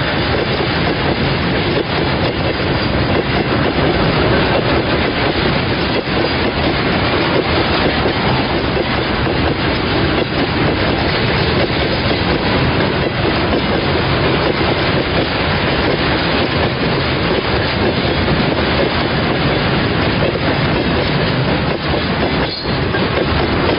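A long freight train of tank wagons rolling past close by: a loud, steady rumble and rattle of steel wheels and bogies on the rails.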